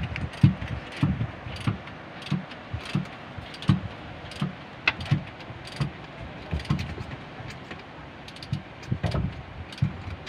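Irregular light knocks and clicks of hand work on metal parts and wiring, about one or two a second, over a steady background hiss.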